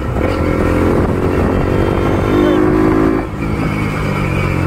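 Bajaj Pulsar NS200's single-cylinder engine running through a custom aftermarket exhaust while ridden, climbing in pitch as it accelerates. The sound dips briefly about three seconds in, then settles to a steadier, lower note.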